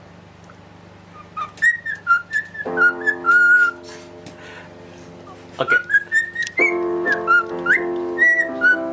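Canary singing in short whistled chirps and quick trills over held chords played on an electronic organ keyboard. The bird starts about a second and a half in; the chords come in near the middle, pause, and return for the last couple of seconds.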